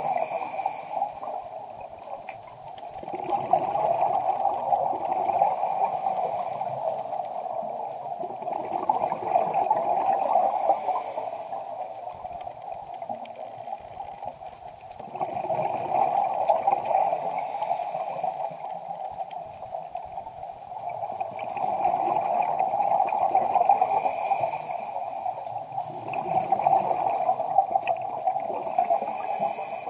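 Underwater sound of a scuba diver breathing through a regulator: gurgling bursts of exhaled bubbles swell and fade in a regular cycle, about every six seconds.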